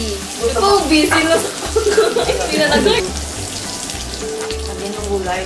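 Pork belly sizzling on a tabletop grill pan, with tongs turning the slices. Background music with a steady beat runs under it, with a voice over the first three seconds.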